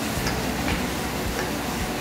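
A few faint soft clicks of fingers pushing diced potato and pataste filling into a pocket cut in a piece of beef in a stainless steel bowl, over a steady background hum.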